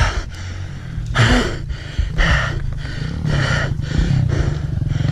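A person breathing hard and fast, a steady run of heavy, gasping breaths. He is out of breath from struggling to climb a snowy slope with the bike.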